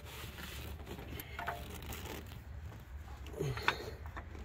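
Faint scattered clicks and handling noises as a hand works to thread the bolt of a new serpentine belt tensioner deep in the engine bay, over a low steady hum.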